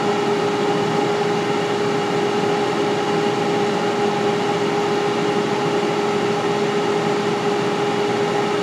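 Air fryer running, its fan giving a steady hum with a constant tone.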